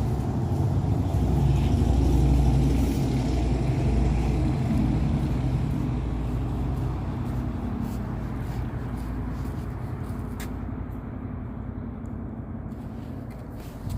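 A motor vehicle passing by, its low rumble loudest about two to three seconds in and then slowly fading away.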